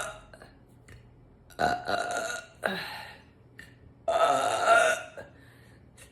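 A woman burping on purpose: a burp about one and a half seconds in, a short second one right after it, and a longer burp about four seconds in. Faint mouth clicks fall in the pauses between them.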